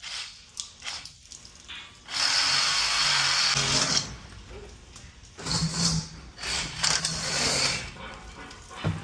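Reciprocating saw running in two bursts of about two seconds each, a steady motor buzz with a hiss, cutting through a pipe.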